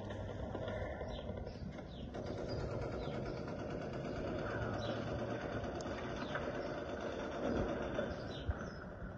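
Outdoor background noise: a steady low rumble, with faint high bird chirps now and then.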